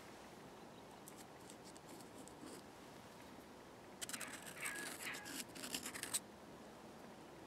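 Paper being worked by hand while a thermostat gasket is made from it: a few faint ticks, then about two seconds of louder scratching and crackling that stops suddenly.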